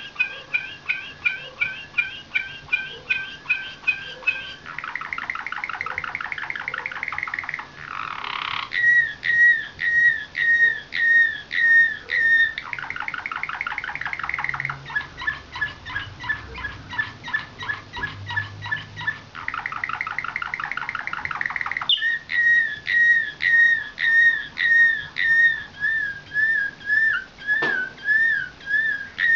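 Canary of the Serbian nightingale-song (slavujar) type, singing a long, varied song: runs of clear whistled notes repeated about two a second, alternating with three fast trills lasting a few seconds each.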